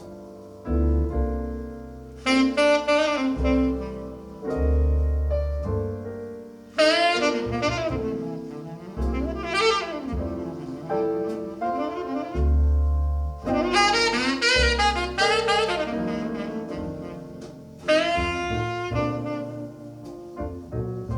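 Music: the instrumental break of a slow jazz ballad, a saxophone playing the melody in phrases over deep, long bass notes and soft piano.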